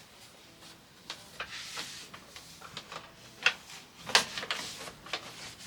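Hands handling and wiping clothes dryer parts during cleaning: scattered light clicks, knocks and rubbing, with a couple of sharper knocks in the second half.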